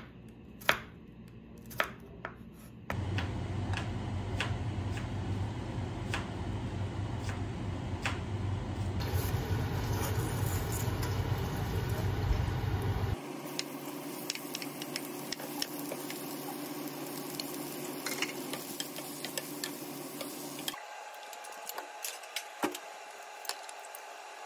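A knife slicing mushrooms on a wooden cutting board with a few sharp taps. From about three seconds in, a pot of water boils steadily as spaghetti goes in, a loud steady rush with a low hum, followed by a quieter steady cooking noise with light clicks. Near the end, a wooden spoon scrapes and clicks, stirring oil and sauces in a ceramic bowl.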